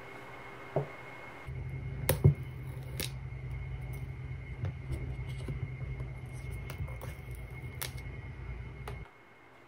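Hands handling a sealed iPhone 13 Pro box and peeling off its paper pull-tab seal strip: a few sharp clicks and taps over a low rumble that starts about a second and a half in and stops near the end.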